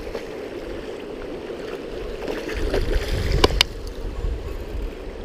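River current rushing over a shallow gravel run, with wind rumbling on the microphone. Two short sharp clicks come close together about three and a half seconds in.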